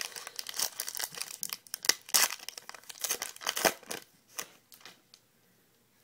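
A trading card pack wrapper being torn open and crinkled by hand. A dense run of crackles lasts about four seconds, then a few scattered ones.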